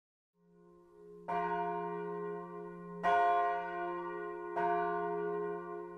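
Church bells ringing: three strikes about a second and a half apart, the first a little over a second in, each left to ring on.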